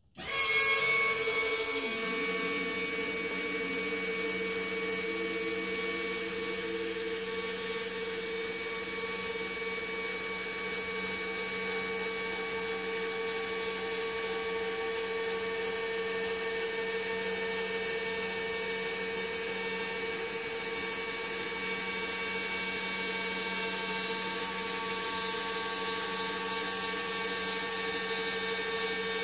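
Electric linear actuator's motor and gear drive running as it slowly pushes a wheeled equipment rack along floor rails: a steady, loud whine that starts abruptly and holds one pitch throughout.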